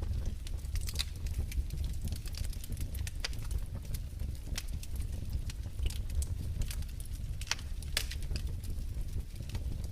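Wood fire crackling in a fireplace: irregular sharp pops and snaps over a steady low rumble of the flames, with a few louder snaps about a second in and twice near the end.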